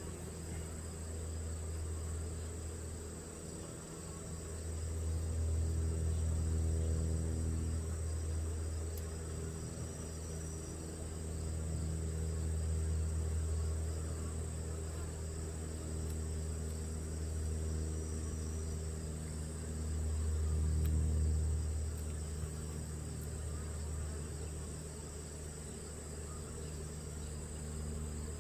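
Honeybees buzzing around an open Langstroth hive, a steady low hum that swells and fades twice. A steady high-pitched insect trill runs underneath.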